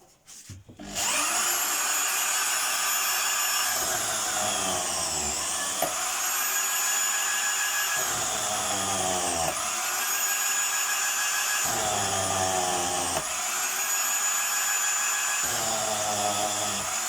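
The motor of a rod-shaving machine starts about a second in and runs with a steady high whine. Four times a split stick is fed through and the cutters chew it into a flat strip; each time a lower grinding noise sets in and the motor's pitch sags under the load.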